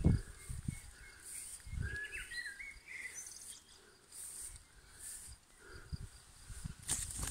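Small birds chirping and singing, with insects chirping in short high bursts every second or so. A few low thumps come at the start, about two seconds in and near the end.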